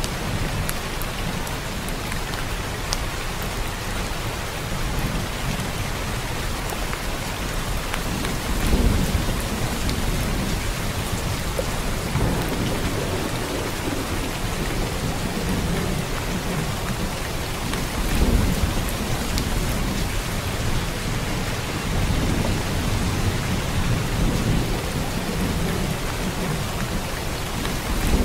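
Steady rain with low thunder rumbles swelling up several times.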